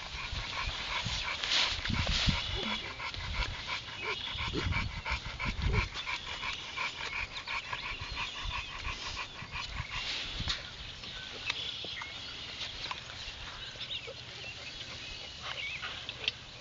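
Kangal puppies whining and yipping as they play, with a pulsed run of thin high cries for the first several seconds.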